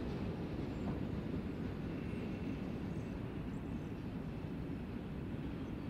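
Low, steady rumble of a train of covered grain hopper cars rolling away on the rails, fading slowly as the last cars leave.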